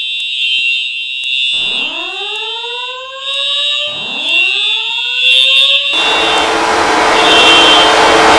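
Simplex fire alarm sounding: a continuous high-pitched horn tone with faint clicks about once a second, overlaid by two rising slow-whoop sweeps, each about two seconds long. About six seconds in, the alarm sound cuts off abruptly and a louder steady rushing noise takes over.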